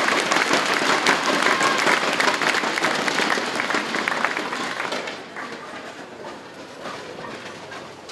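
Audience applauding a strike, dying down about five seconds in.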